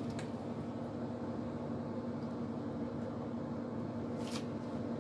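A steady low hum, with two brief crunches, one just after the start and one about four seconds in, from a cat chewing dry kibble.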